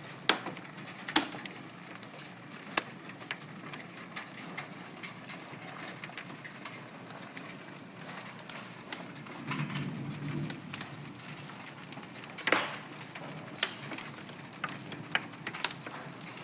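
Large hailstones pelting down: a steady hiss of falling hail and rain, broken by irregular sharp cracks as individual stones strike hard surfaces.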